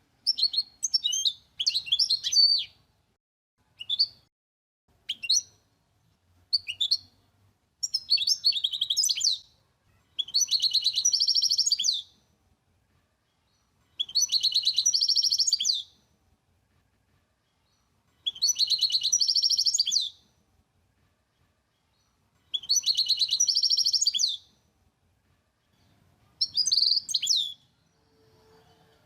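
A small songbird singing. It gives a few short chirps at first, then a series of long, rapidly trilled phrases of about two seconds each, separated by pauses of a couple of seconds.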